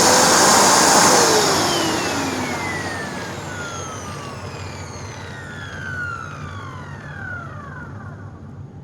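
Hoover NanoLite vacuum cleaner's motor spinning down after being switched off: a whine that falls steadily in pitch and fades over several seconds.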